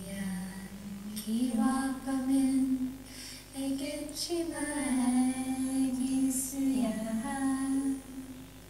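A woman singing an opening song in long, slow held notes, played back from a video through a hall's speakers.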